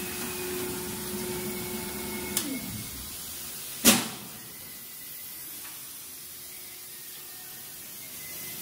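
Automatic loading machinery of a CNC router panel line: a motor runs with a steady hum and tone, then winds down with a falling pitch about two and a half seconds in, just after a small click. A single sharp loud clack comes near four seconds in, then only a faint steady background hum remains.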